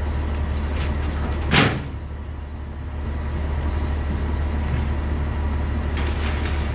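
Crane truck's diesel engine running steadily with a low hum, a short sharp hiss about one and a half seconds in, and a few light metallic clinks from the lifting chains.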